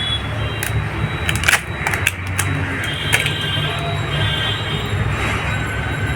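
Steady low background hum with scattered light clicks and taps.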